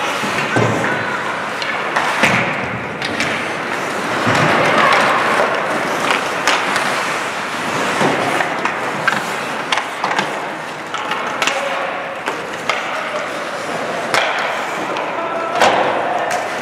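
Ice hockey skates scraping and carving across rink ice, with frequent sharp clacks and knocks from sticks and puck.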